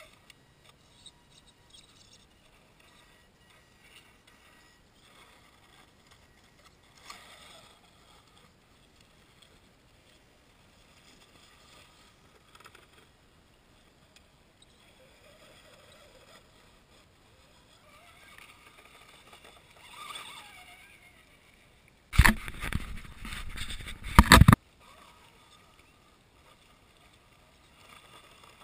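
Radio-controlled rock crawler's electric motor and geared drivetrain whining faintly as it crawls over granite, with small scrapes and knocks of tyres on rock. About 22 seconds in comes a loud rush of noise on the microphone lasting about two and a half seconds.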